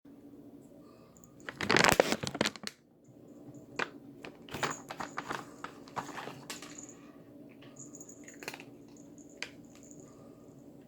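A cat getting into a package of cat treats: a loud burst of crinkling and crackling about two seconds in, then a run of scattered clicks and rattles that thin out near the end.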